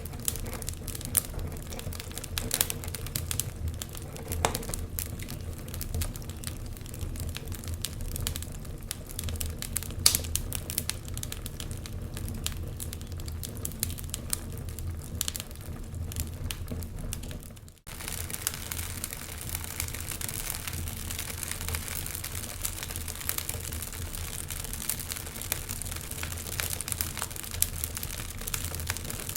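Wood fire crackling, with many sharp irregular pops over a steady hiss. About two-thirds of the way through it cuts out for an instant and resumes with a brighter hiss.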